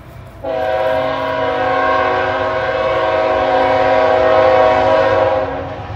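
Freight locomotive's air horn sounding one long blast, a chord of several steady tones, starting about half a second in and cutting off near the end.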